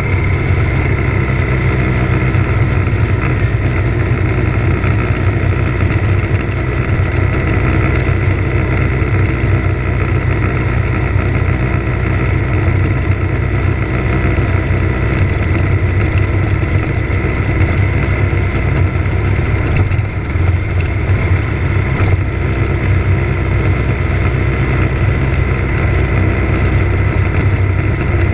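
Motorcycle engine running steadily at cruising speed, heard close from a bike-mounted camera together with wind and road noise. The level dips briefly about twenty seconds in.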